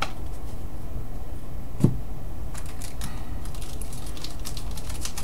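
Trading cards and foil packs being handled and set down on a desk: small clicks and rustles, thickest in the second half, with one dull knock about two seconds in, over a steady low hum.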